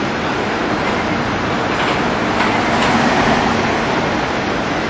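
Steady city street traffic noise, a constant wash of passing vehicles.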